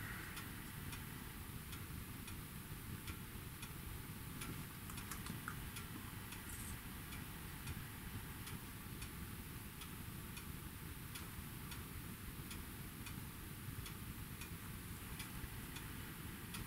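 Steady light ticking at an even pace over a low steady hiss.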